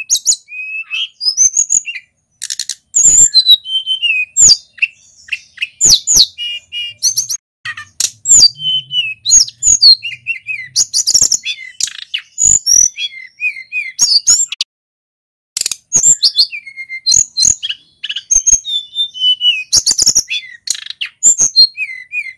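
A male sulingan gunung songbird singing without a break: rapid high whistled notes, chirps and trills, some gliding up or down in pitch, with sharp clicks among the phrases and one short pause about two-thirds of the way through.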